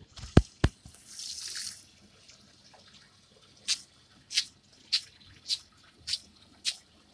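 Two sharp knocks, then a brief splash of water poured from a plastic container onto potted plants, followed by a regular series of light taps a little under twice a second.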